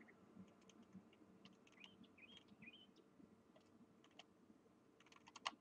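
Near silence: room tone with a few faint computer-mouse clicks, a quick cluster of them near the end, and some faint bird chirps in the background.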